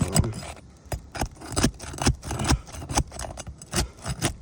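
Asphalt roof shingle being gently pried up for a repairability test: a quick run of sharp crackles, clicks and scrapes as the sealed tab is worked loose from the shingle beneath, the shingles being brittle.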